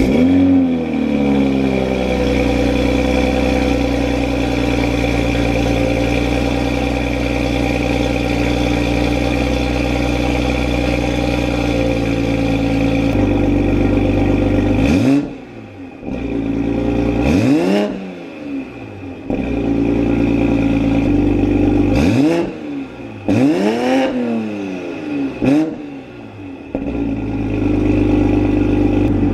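2020 Toyota Supra's B58 turbocharged inline-six starting up with a brief flare, then idling through a freshly installed VRSF downpipe. About halfway through come several quick throttle blips, each rising and falling in pitch, with the engine dropping back to idle between them.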